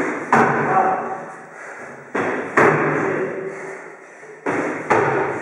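Box jumps onto a plywood plyo box: three pairs of thumps about two seconds apart, the two in each pair about a third of a second apart, as the feet hit the floor and then the box. Each thump rings on in the bare room.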